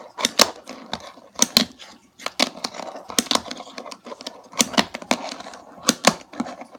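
Fingerboard with bearing wheels clacking on a wooden table as it is flicked through tricks: irregular sharp clicks of the deck and wheels hitting the surface, some in quick pairs.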